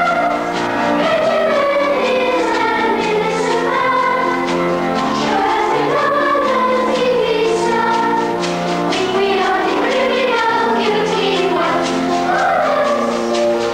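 A children's choir singing a song from a school musical, with instrumental accompaniment and a steady beat.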